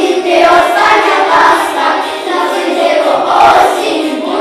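A group of young children singing a song together in unison, their voices held on long notes.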